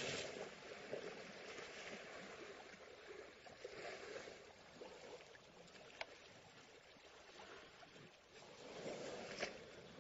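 Elephants splashing and sloshing in water: a faint, steady wash of moving water, with a sharp splash or knock about six seconds in and a louder swell of splashing near the end.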